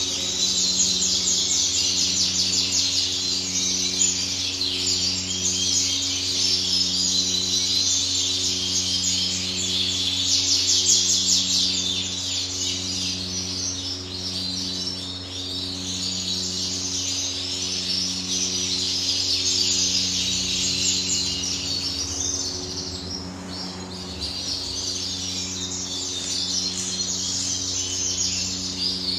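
European goldfinches singing continuously in a rapid, twittering warble. Under the song runs a steady low hum with a faint pulsing beat about once a second.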